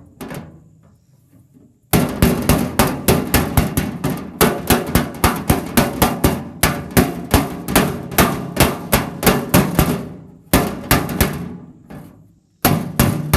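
Hammer rapidly tapping the sheet metal of a truck tool box to work out a dent, about four blows a second in long runs with short pauses.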